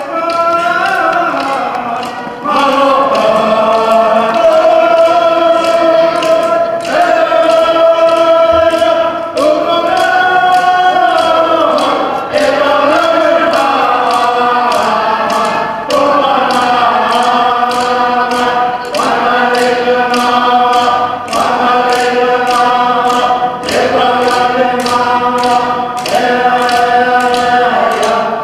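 A group of voices singing an Iñupiaq drum song in unison, in phrases a few seconds long, over a steady beat of struck frame drums.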